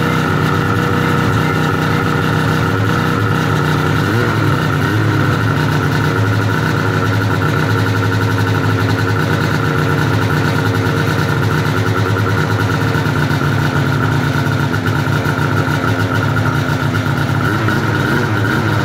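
Two-stroke snowmobile engine of a 2003 Ski-Doo MX Z Rev idling steadily in place just after a cold start, the freshly swapped-in motor running smoothly and smoking.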